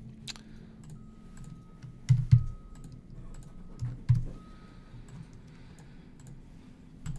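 Scattered clicks of a computer keyboard and mouse, with a few duller, louder knocks around two and four seconds in.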